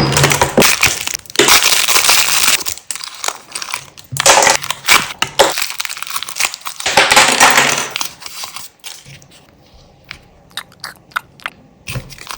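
Crushing and crunching, loud and harsh, in three long passes during the first eight seconds, then sparse light clicks and crackles.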